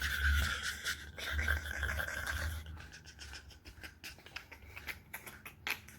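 Faint scattered clicks and taps, like objects being handled, over a low rumble, with a steady faint hiss that fades out a little under halfway through.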